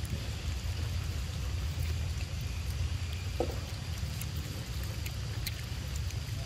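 Wind buffeting the microphone: a steady, low rumble, with a few faint ticks over it.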